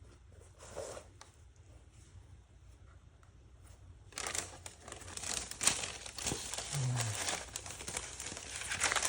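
Sneaker packaging being unwrapped: quiet at first, then from about four seconds in a busy run of crinkling and tearing of wrapping material with sharp crackles.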